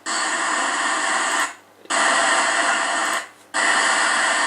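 K5LA five-chime train air horn sounding three blasts of about a second and a half each with short breaks between, harsh and distorted, as played back from a video.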